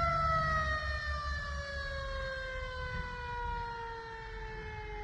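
A siren winding down, one wailing tone falling slowly and steadily in pitch, over a low rumble of truck engines.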